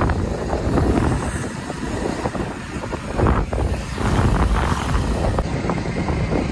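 Wind buffeting the microphone on a moving motorcycle, over the bike's engine and road noise.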